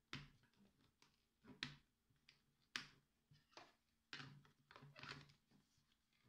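Hard plastic clicks and taps as the hatch and canopy of a toy RC speedboat are handled and pressed onto the hull, with a short scraping rustle about four seconds in.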